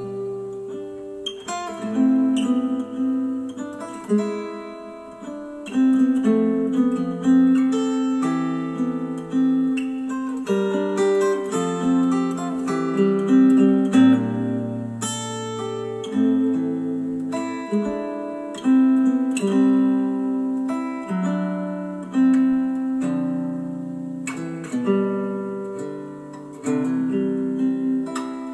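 Instrumental music led by plucked acoustic guitar, played through a pair of Dayton Audio B452 Air bookshelf speakers driven by a Yamaha A-S301 integrated amplifier. Notes are picked and left to ring and fade, with chord changes every second or so.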